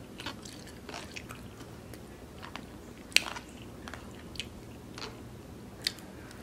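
Close-up eating sounds: a person chewing and biting food with wet mouth clicks and smacks, the sharpest a little over three seconds in.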